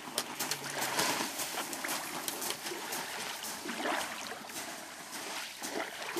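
Lake water lapping and splashing, a run of light irregular splashes over a steady wash of noise.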